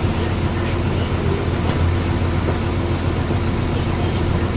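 Mitsubishi Fuso bus engine idling steadily with a low hum, heard from inside the passenger cabin while the bus stands at a stop.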